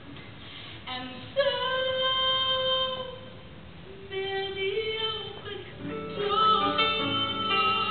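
Worship song with a woman singing long held notes over light accompaniment; the backing grows fuller and louder about six seconds in.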